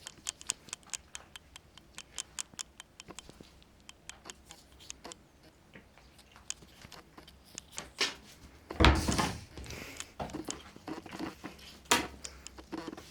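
Quick light clicks and taps, several a second for the first few seconds and then sparser, with a loud dull thump about nine seconds in and a sharp knock near the end.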